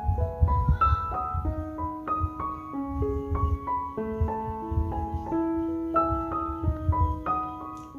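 Background piano music: a gentle melody of separate held notes stepping up and down, with an irregular low rumble underneath.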